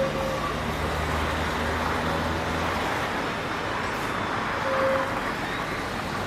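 Street traffic noise: a motor vehicle running past with a low hum over the steady city background, and two short tones, one at the start and one about five seconds in.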